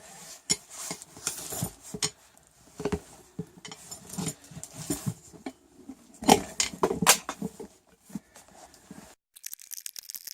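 Rubber wheelbarrow tire being worked off its metal rim by hand: irregular scraping and rubbery tearing noises with sharp clinks and knocks of metal.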